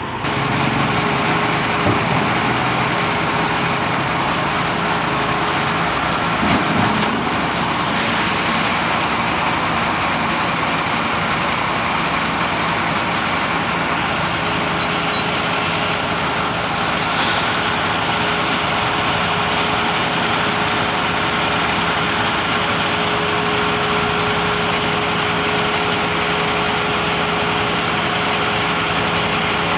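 Schwing truck-mounted concrete pump running steadily as its hydraulically driven boom unfolds: a constant engine and machinery noise with a steady tone over it.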